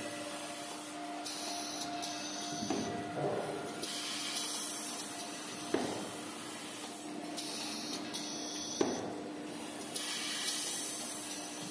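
Automatic maxi-roll/jumbo-roll paper band saw cutting machine running with a steady hum, a sharp clunk about every three seconds as it cycles, and bursts of hiss between the clunks.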